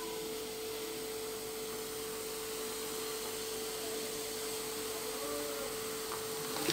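Pepsi poured from a plastic bottle into a plastic jug, the cola fizzing and foaming with a steady hiss, over a steady background hum.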